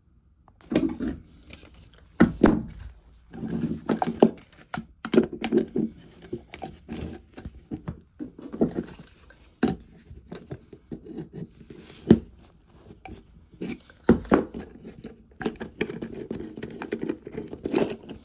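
Two pairs of pliers clicking, gripping and scraping on the brass nut and body of a new Part 2 float valve as the nut is worked loose. The sound is an irregular run of sharp metallic clicks and short scrapes, starting under a second in.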